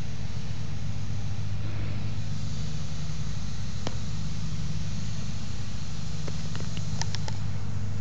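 Homemade smoke machine for leak testing running with a steady low hum. A soft hiss comes in about two seconds in, and there are a few sharp clicks near the end.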